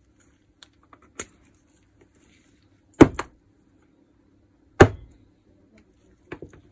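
Sharp knocks and clicks from handling the parts of a dismantled rotary hammer: a light tap about a second in, two loud knocks about two seconds apart (the first doubled), and a small click near the end.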